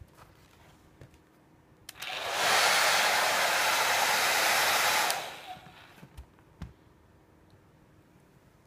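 Hand-held hair dryer switched on with a click, blowing steadily for about three seconds, then switched off and winding down. A few faint clicks follow.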